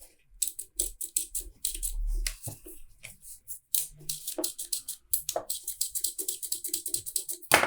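Rapid small clicks, taps and rattles of a Makita DTW300 impact wrench's parts being handled during teardown, coming faster toward the end, with a brief low rumble about two seconds in.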